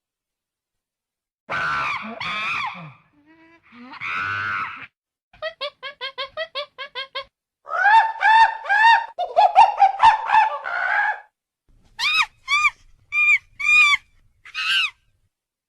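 Pet monkey vocalizing in a string of high, arching calls: two longer calls, then a quick run of short pips, a burst of rising-and-falling calls, and a few short high squeaks near the end.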